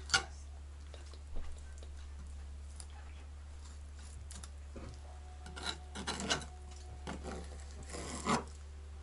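Hand work with a knife and metal parts: a sharp click right at the start, a knock about a second and a half in, then a run of scraping and clicking in the second half, over a low steady hum.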